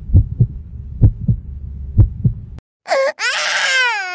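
Low rumble with irregular heavy thumps, about two a second, like a microphone being handled or bumped. It cuts off suddenly past the middle. Then a person gives a long high-pitched yell that falls in pitch.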